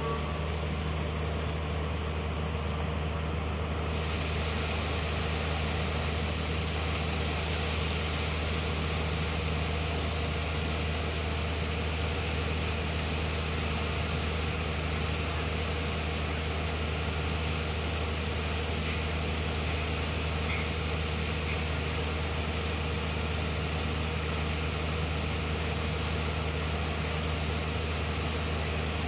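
Watermaster amphibious dredger's diesel engine running steadily under load while its pump throws dredged mud out through the discharge pipe: a low, even drone with a rushing noise that grows louder about four seconds in.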